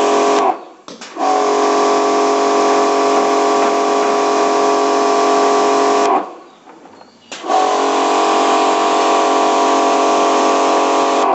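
High-pressure washer (jet cleaner) spraying through a jet gun with a spray tip: a steady whine over a hiss of water. It cuts off twice as the trigger is released, about half a second in and about six seconds in, and starts again about a second later each time.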